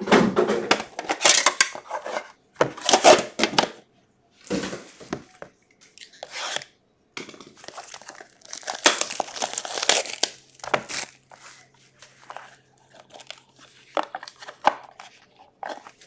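Plastic wrapping tearing and crinkling in irregular bursts as a sealed box of hockey cards is unwrapped and opened.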